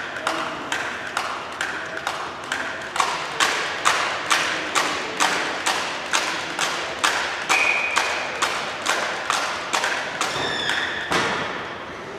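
Crowd beating out a steady rhythm, about two and a half beats a second, echoing in the sports hall. It grows louder a few seconds in and dies away near the end.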